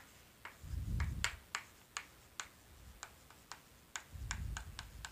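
Chalk writing on a blackboard: a string of sharp, irregular taps and clicks as the chalk strikes and drags across the board, with a couple of low dull bumps from the board.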